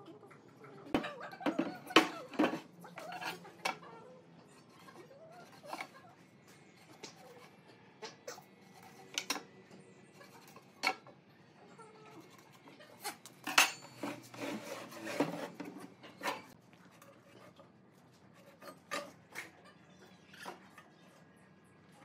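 Scattered clicks, metal clinks and wooden knocks of hand tools and boards being handled on a wooden workbench: a steel tape measure and a metal square set down, and thick wooden boards shifted and stood up. The sounds come in two busier bursts, a second or so in and again about halfway through.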